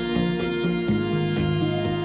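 Instrumental background music with held notes and a steady beat.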